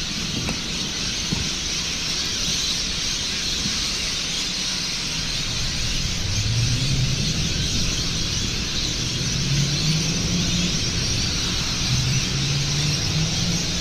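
Dense, continuous calling of a large flock of birds gathering to roost in trees at dusk, with traffic hum underneath from about halfway.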